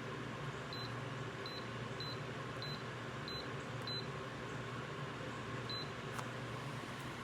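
A series of short, high electronic beeps, about seven spaced unevenly over the first six seconds, over a steady low hum and hiss.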